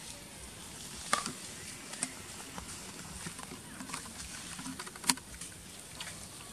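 Scattered light clicks and taps of fruit being handled on a metal tray, with two sharp clicks, about a second in and about five seconds in.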